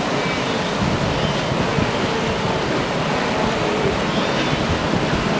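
Steady rushing noise of a large herd of wildebeest splashing across a river, mixed with wind buffeting the microphone.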